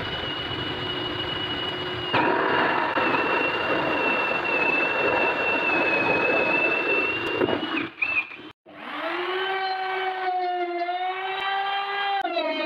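Cordless drill boring through a sawdust-composite panel, a steady high whine with heavy cutting noise that grows louder once the bit bites in, stopping about eight seconds in. After a short break a trim router spins up and runs with a steady whine, its pitch sagging for a couple of seconds and rising again near the end.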